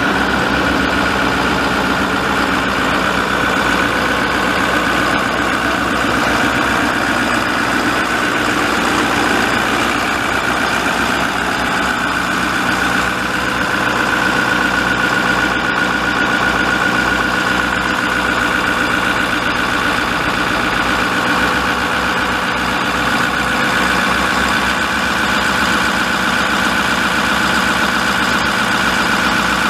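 2008 Ford F250 Super Duty's 6.4-litre V8 turbo diesel engine idling steadily.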